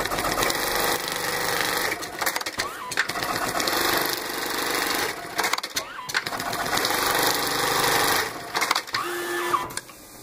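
Brother BAS342F programmable pattern sewing machine stitching bartacks in runs of a few seconds each. Between the runs come short breaks with clicks, as the thread is trimmed and the frame jumps to the next tack. The sound drops near the end.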